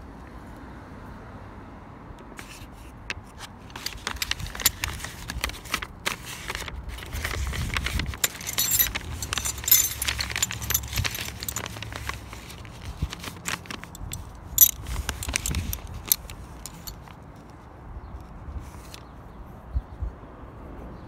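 Small metal objects clinking and scraping as they are handled: a run of sharp clicks with a bright ring, busiest in the middle and dying away after about three-quarters of the way through.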